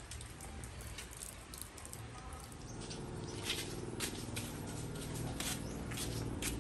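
Footsteps of a person walking on wet concrete and dirt, soft scattered steps about twice a second, with a steady low hum coming in about halfway through.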